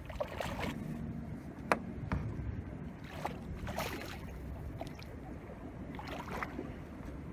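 Water splashing and lapping at the side of a small boat as a hooked striped bass is drawn alongside and lifted out by hand, over a steady low rumble. A few sharp knocks against the boat come through, the loudest about a second and a half in.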